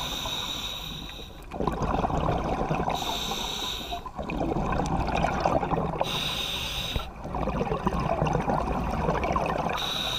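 Scuba diver breathing through a regulator underwater: a short hissing inhale, then a longer crackling rush of exhaled bubbles, repeating about every three seconds.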